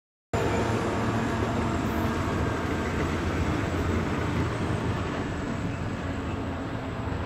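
Diesel commuter train running: a steady low engine drone under rail noise, starting abruptly about a third of a second in.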